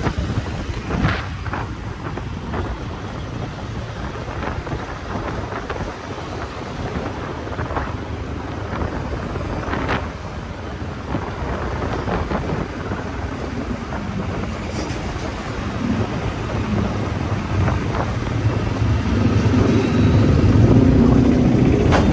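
Wind buffeting the microphone of a camera riding on a moving two-wheeler, a steady rumbling noise over road traffic. A vehicle engine's drone grows louder near the end.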